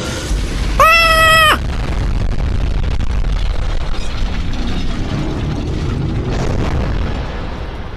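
Sound-effect track: a continuous low explosion-like rumble, with a loud pitched wail about a second in that sweeps up, holds for under a second and drops away.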